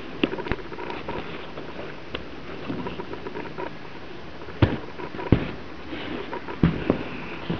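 Handling noise from a cowhide leather boot being gripped, rubbed and turned by hand: a scratchy rustle of fingers on the leather, broken by several sharp knocks, the loudest in the second half.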